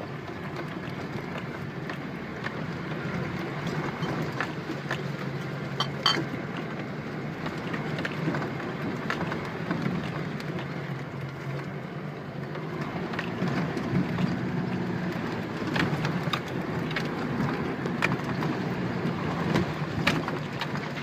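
Opel Campo 4x4 pickup driving over a rough forest track: a steady engine note with scattered knocks and clicks throughout.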